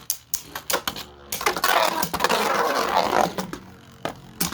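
Beyblade spinning tops, a 3D-printed one against a Pro Series Valkyrie, clashing in a plastic stadium. Sharp clicks of hits come early and again near the end, with a dense scraping whirr of the spinning tops for about two seconds in the middle.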